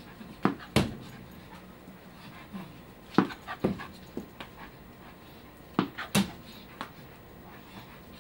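Wire fox terrier jumping for a tennis ball held overhead: a string of sharp knocks and thumps, several in quick pairs, with dog sounds between them.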